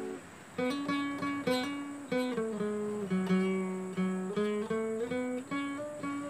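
Two acoustic guitars playing a qasidah tune together, picked melody notes and chords over a moving bass line. A held chord fades out at the start, and the tune picks up again about half a second in.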